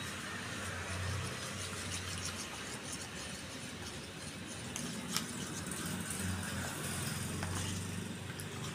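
Steel spoon stirring custard powder into milk in a small ceramic bowl: faint scraping and swishing with an occasional light clink, to dissolve the lumps. Under it runs a steady low machine hum.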